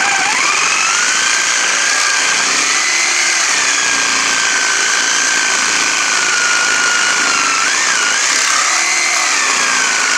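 Reciprocating saw cutting through the cast aluminium housing of an outboard motor's lower unit. It starts right at the beginning, its whine rising quickly as the motor spins up, then runs steadily under load with the rasp of the blade in the metal.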